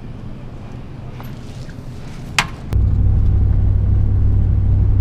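Low, steady rumble of a moving vehicle, with one sharp click about two and a half seconds in. Just after the click the rumble abruptly gets much louder and stays that way.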